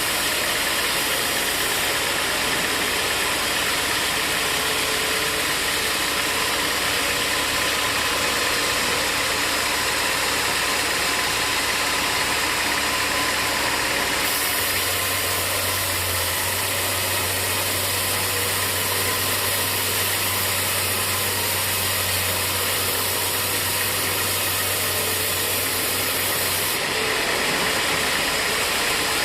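Sawmill machinery running steadily. About halfway through, a low hum and a stronger high hiss come in for about twelve seconds, then drop back shortly before the end.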